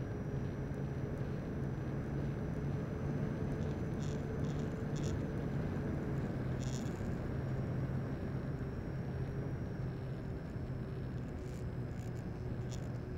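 Radio-controlled model airplane's electric motor and propeller heard from on board in flight: a steady low drone with a faint high whine over a rush of wind, with a few light clicks.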